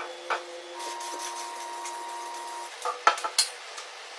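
Hands rubbing a vinyl stripe decal down onto the painted metal fuel tank of a Honda CG125, with a few sharp clicks and taps about three seconds in.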